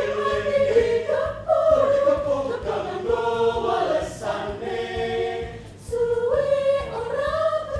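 Mixed choir of men and women singing, holding long notes with short breaks between phrases.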